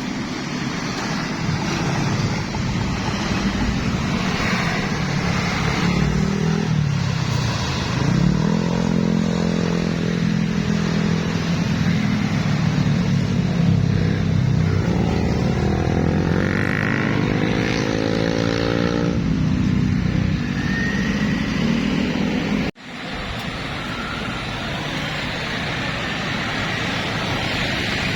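Large tour buses' diesel engines pulling through a sharp bend. The engine pitch dips, then climbs steeply as they accelerate, over steady road traffic noise. The sound cuts out for an instant about three-quarters of the way through.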